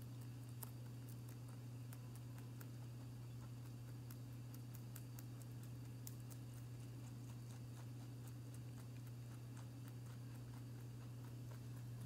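A pet rabbit chewing cabbage leaf: faint, quick, crisp clicks of crunching, many a second, over a steady low hum.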